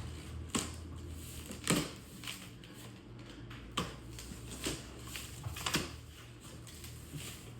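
Cardboard shipping box being handled and opened: irregular clicks, taps and scrapes, about half a dozen, over a low steady hum.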